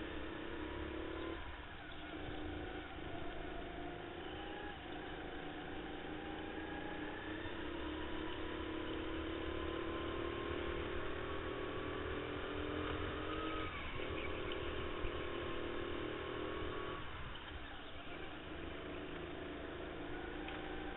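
Go-kart motor heard onboard at racing speed. Its pitch climbs steadily on the straights and drops sharply as the throttle lifts for corners, four times.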